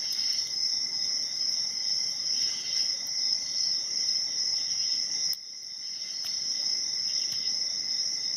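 Steady high-pitched insect chorus, crickets trilling continuously, with a faint click and a brief dip in level about five seconds in.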